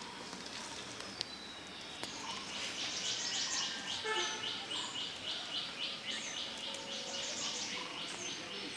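Birds calling: a fast run of high chirps, about five a second, starts about two seconds in and goes on to near the end, over short high falling notes that repeat about once a second.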